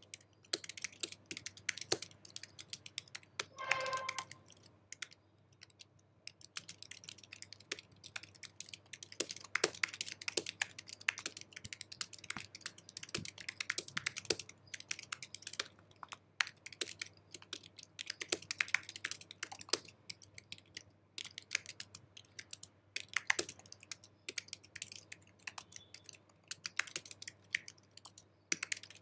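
Fast typing on an Apple keyboard: a dense, irregular run of key clicks, with a brief lull about five to seven seconds in. A short pitched tone sounds for about half a second, about four seconds in.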